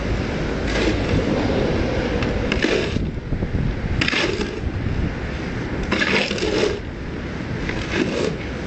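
Repeated short scrapes and clinks of hand tools on stone and gravel, coming every one to two seconds over a steady low rumble.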